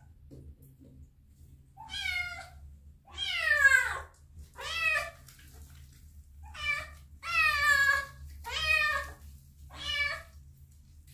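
A three-month-old kitten meowing repeatedly while being held and shampooed in a bath, about seven high calls roughly a second apart. Two of them are longer and fall in pitch, and the loudest comes a little over three seconds in.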